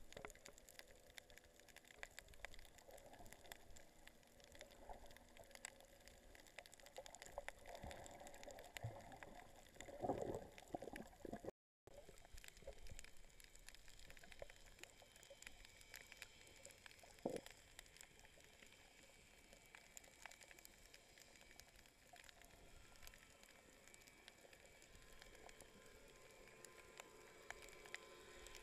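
Faint, muffled underwater sound: low water movement and gurgling with scattered small clicks and crackles. There is a louder gurgling stretch around ten seconds in, a moment of dead silence just before twelve seconds, and a single louder gurgle about seventeen seconds in.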